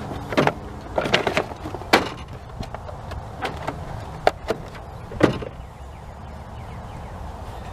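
Irregular metallic clicks and knocks of a socket on a long extension being worked against the EGR valve's mounting bolt, about nine in the first five seconds, then they stop.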